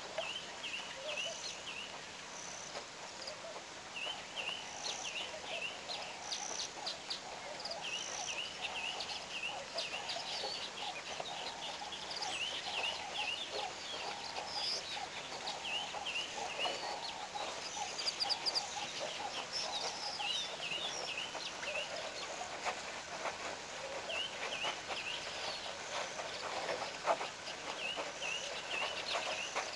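Wild birds calling around an African waterhole: repeated runs of short, quick chirps over a lower layer of chattering calls, with a few sharp taps about eighteen seconds in.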